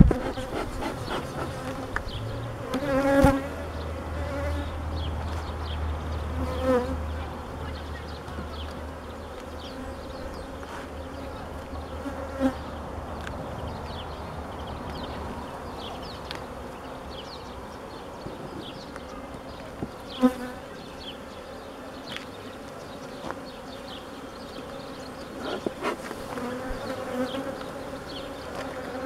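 Honeybees buzzing in and around an open hive, with single bees droning past close by several times, most loudly about three seconds in and again around twenty seconds in.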